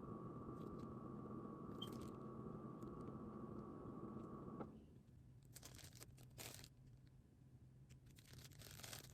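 A faint steady hum with a high whine cuts off suddenly about halfway through. It is followed by soft, scattered crinkling of a plastic frosting piping bag being squeezed and handled.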